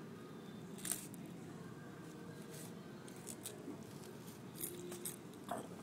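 Quiet room tone: a low steady hum with a few faint, scattered soft clicks and rustles.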